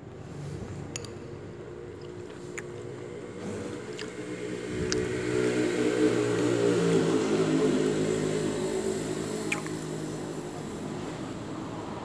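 A motor vehicle engine running close by, growing louder about halfway through and then easing off with a slight fall in pitch as it passes. A few sharp clicks of metal cutlery against a ceramic bowl.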